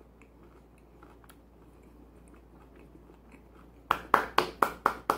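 Soft chewing with small mouth clicks, then about seven quick, loud hand claps near the end.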